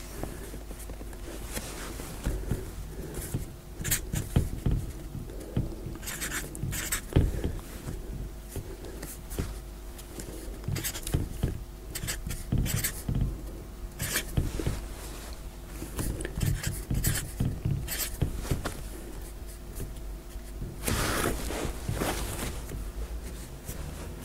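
Felt-tip marker scratching on a writing board as digits are written, in short irregular strokes, with a longer stretch of scratching near the end. A faint steady hum lies underneath.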